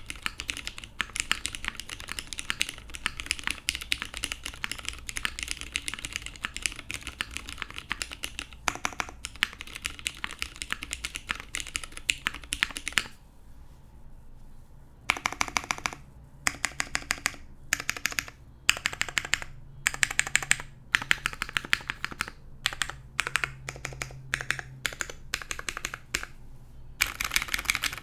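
Typing on a custom Finder Works Hyphen mechanical keyboard with lubed Cherry MX Brown Hyperglide switches, an aluminium half plate and GMK keycaps: a steady stream of keystroke clacks that stops for about two seconds near the middle, then comes back in short runs of keystrokes with brief gaps between them.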